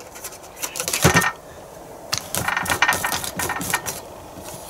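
Table knife scraping and spreading cold, hard butter onto slices of bread. There is a loud burst of scraping about a second in, then a run of short scrapes and taps against the bread and wrapper.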